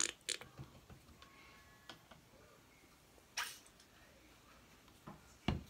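A few light clicks and a brief swish as painting supplies are handled on a table, with a dull thump near the end.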